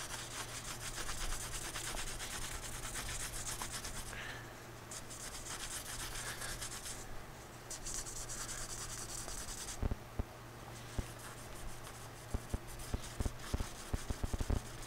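Rubbing at the still-tacky leather repair compound on a car armrest, in several stretches of quick, scratchy strokes. A few light knocks come in the second half.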